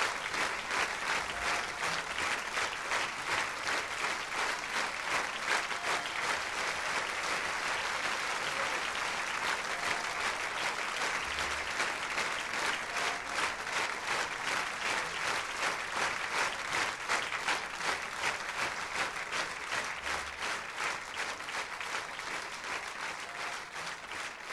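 Audience applauding: steady clapping of many hands, thinning slightly near the end.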